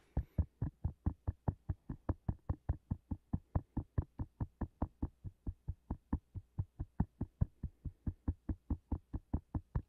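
A palm tapping on the top of the head in a steady, even rhythm, about four or five pats a second.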